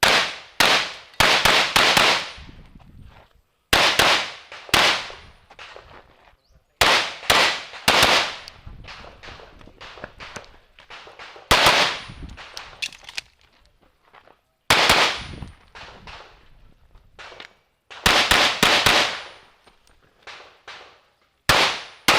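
Open Division competition pistol fired in fast pairs and short strings of shots, each a sharp crack with a ringing tail, with pauses of one to two seconds between groups as the shooter moves between positions.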